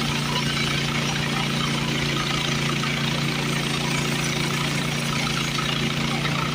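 Small gas engine of a portable bandsaw sawmill running steadily at a constant speed.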